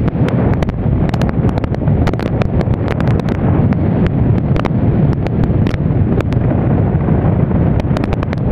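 Wind rushing over the microphone of a motorbike riding at speed: a loud, steady rumble with scattered crackles.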